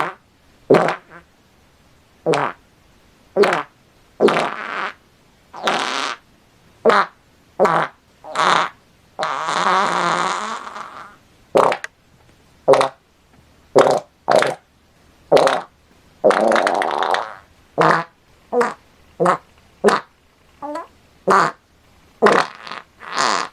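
A string of fart sound effects: about two dozen short blasts, roughly one a second with brief pauses between them. A few longer ones last one to two seconds, the longest about halfway through.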